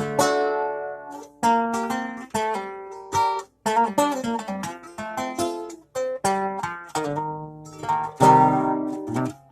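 A plucked string instrument played solo, guitar-like: picked notes and strummed chords that ring and die away, with two brief breaks between phrases.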